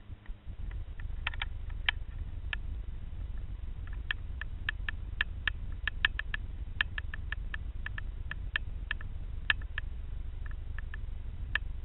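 Underwater sound from a submerged camera: a steady low rumble with scattered short, sharp clicks and ticks. The clicks are few at first, come in a quick irregular run of several a second from about four seconds in, and thin out again near the end.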